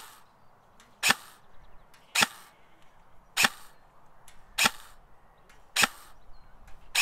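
Custom KWA KM4 airsoft electric rifle firing 0.28 g BBs in single shots at a steady pace, a little over one a second, each a sharp crack with a short tail.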